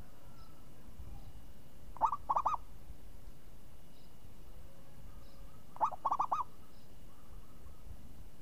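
Zebra dove (perkutut) cooing: two short song phrases about four seconds apart, each a quick run of four or five clipped notes, with a crisp voice.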